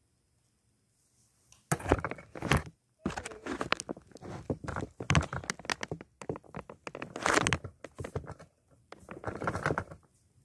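Close handling noise: rustling, rubbing and knocking right at the microphone, in uneven bursts from about two seconds in until near the end, as the recording device is picked up and moved.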